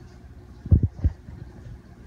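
Steady low rumble with two dull, low thumps close together, just under a second in and again just after.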